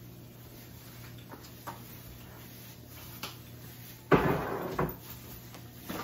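A few light clicks and knocks, then a kitchen cabinet door shutting with a loud thump about four seconds in, followed by a second, smaller knock.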